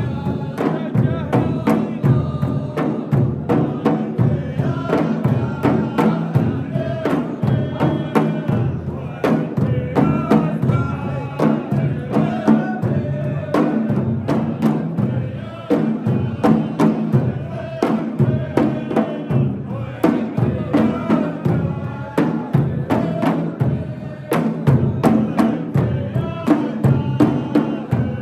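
Music with a steady percussion beat under a shifting melody line.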